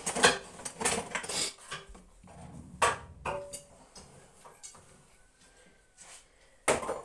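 A knife clinking and scraping against a candle holder while scraping out melted wax: a quick run of sharp metallic clinks in the first second and a half, a few more around three seconds in, then one last clink near the end.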